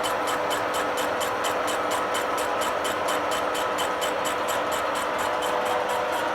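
Metal milling machine running and cutting steel, a steady gear whine overlaid with a regular chatter of about five pulses a second as the cutter's teeth bite.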